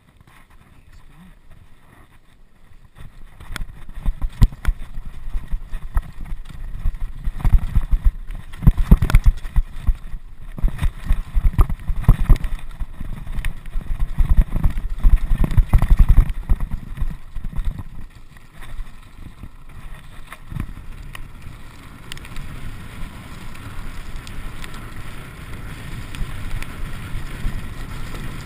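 Mountain bike clattering and rattling over a rocky trail, with dense sharp knocks and a heavy rumble starting a few seconds in, and wind on the microphone. After about twenty seconds it eases into a steadier rumble of tyres on smoother gravel with wind.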